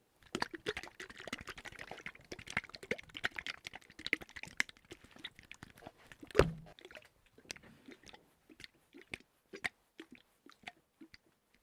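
Crunching, crackling Foley sound. Dense rapid crackles and clicks for the first few seconds thin out to scattered clicks, with one loud thud about six and a half seconds in.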